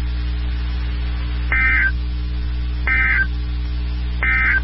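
Emergency Alert System end-of-message data bursts: three short, raspy bursts of SAME digital tones, evenly spaced a little over a second apart, signalling the end of the alert, over a steady low hum from the weather radio.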